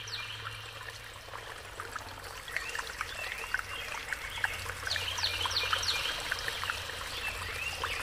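Water trickling, with birds chirping and whistling in short calls over it.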